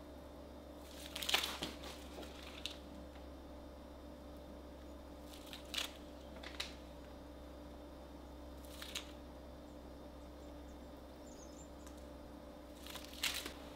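Plastic piping bag crinkling in short bursts, about five times, as it is squeezed to pipe soft butter cookie dough through a star tip, over a faint steady hum.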